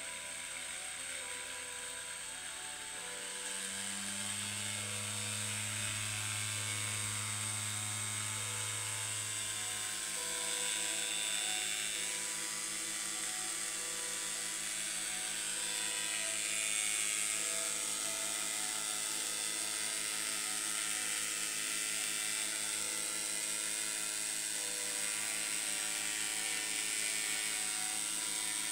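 Steady electrical buzz with a high whine from a homemade transistor oscillator circuit driving a flat copper pancake coil, which switches at about 255 times a second. A lower hum comes in a few seconds in and stops about ten seconds in.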